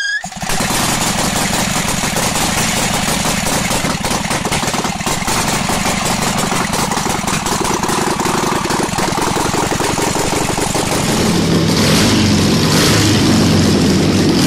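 Vintage Excelsior 1-litre V-twin motorcycle engine running with a fast, uneven firing beat. About eleven seconds in the sound changes and gets louder.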